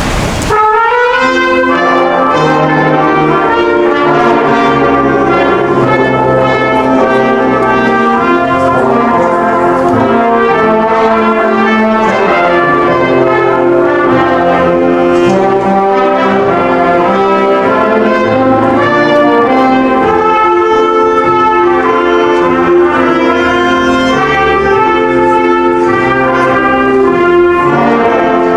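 Brass ensemble playing music in several parts, chords of held notes moving together; it starts about half a second in.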